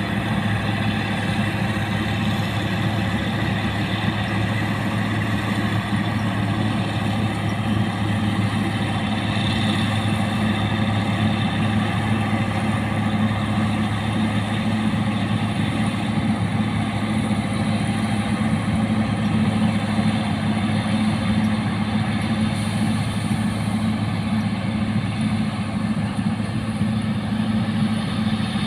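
Rice combine harvester running steadily: a constant engine drone with a steady machine hum layered over it, holding the same pace throughout.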